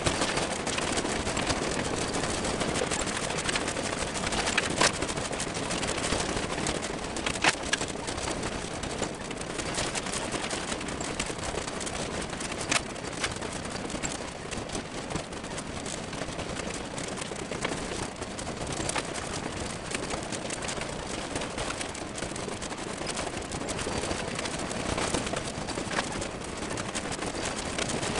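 Train rolling along the rails: a steady rattling, rushing noise with scattered sharp clicks.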